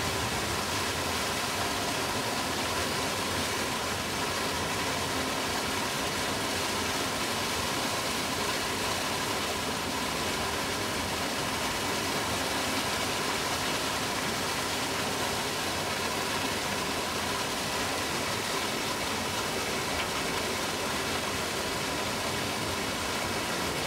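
Steady rushing water, an even noise that does not change.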